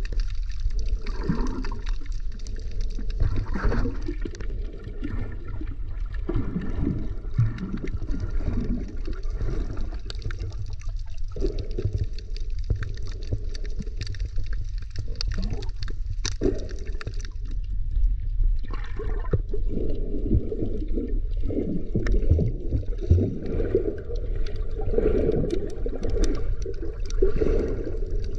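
Muffled sloshing and gurgling of water recorded by a camera held underwater, swelling and easing in irregular surges, with a few scattered sharp clicks.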